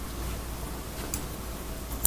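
Steady hiss of rain, with a faint click a little over a second in.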